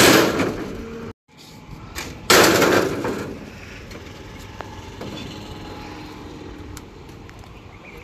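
Two loud crashes with a rattling tail, at the start and again a little past two seconds in, from heavy material being unloaded around a small cargo truck's metal bed. Then a steady, lower outdoor background with a few faint clicks.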